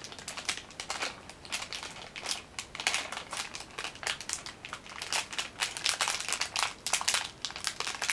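Snack package crinkling in the hands as it is handled and opened, a fast, irregular run of crackles.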